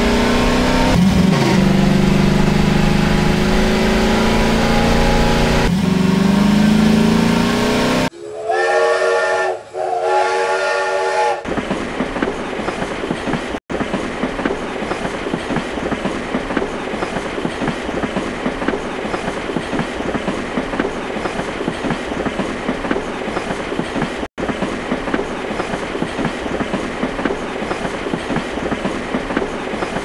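Dubbed sound effects: a motor vehicle engine runs with its pitch rising and falling for about eight seconds. Then a steam whistle gives two blasts, and a train rolls on with a steady clickety-clack over the rail joints.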